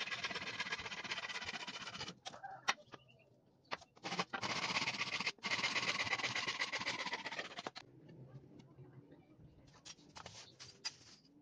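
Hand saw cutting through a thin wooden batten, sawing in long runs with short pauses between them and stopping about eight seconds in. After that there are only faint clicks and knocks.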